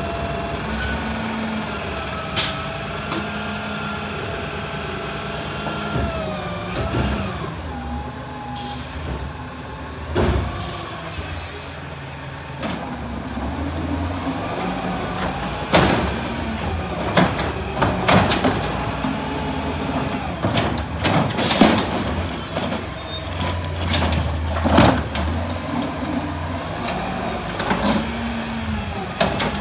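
Automated side-loader garbage truck working at the curb: engine and hydraulics rising and falling in pitch as the arm lifts and tips trash carts, with loud knocks as the carts bang against the hopper, several in the second half.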